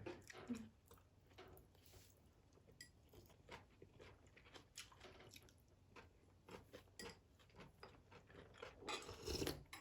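Near silence with faint, scattered small clicks and soft rustles.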